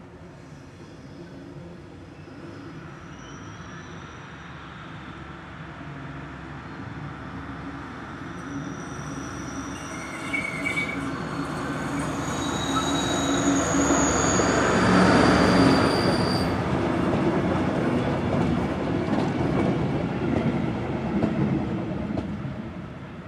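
ÖBB class 2062 diesel shunting locomotive running past with a coach. Its engine grows louder as it approaches, is loudest about two-thirds of the way through, then fades. Wheels squeal in thin, high tones on the tight curve as it passes.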